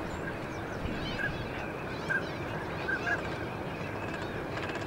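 A large flock of wild ducks calling on a wetland pond: a steady din of many birds, with a few short, clear calls standing out above it.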